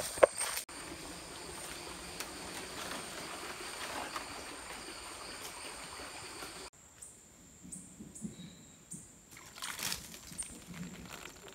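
Rainforest ambience: insects keep up a steady high-pitched whine over the creek. Footsteps crunch and rustle through dry leaf litter and brush against plants. The sound drops abruptly about two-thirds of the way through, leaving the insect tone and scattered crackles of steps.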